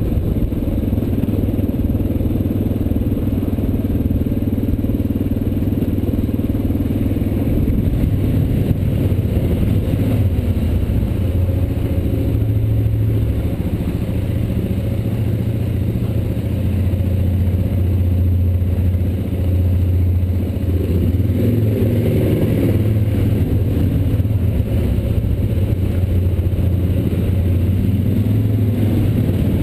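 Single-cylinder dual-sport motorcycle engine running steadily while riding, heard from the bike itself, its pitch shifting a little about two-thirds of the way through.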